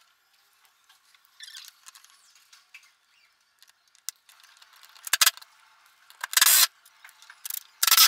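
Cordless drill run in several short bursts at a plywood backboard while a patch panel is mounted, most of them in the second half. Before that there is faint rustling of the plastic panel being handled.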